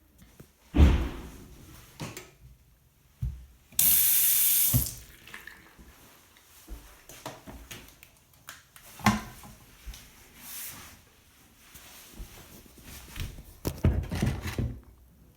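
Glacier Bay dual-flush toilet being flushed: a sharp clunk about a second in, a loud rush of water for about a second, then quieter running water with a few more knocks.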